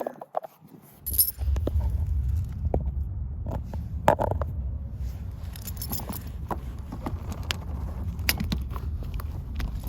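Metal snow-chain links clinking and rattling in short, scattered clicks as the chain is handled and fitted around the tyre, over a low steady rumble.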